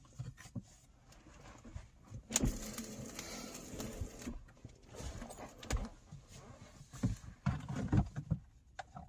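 Clicks and knocks of plastic wiring connectors being handled and pushed onto a car's hazard light switch, with a longer rustling scrape about two and a half seconds in.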